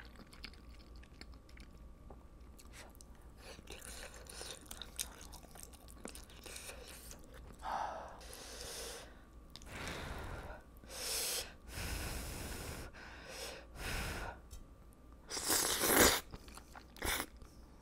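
Close-miked chewing and crunching of spicy rice cakes, noodles and fried food, with wet mouth sounds. Near the end there is a loud slurp of noodles.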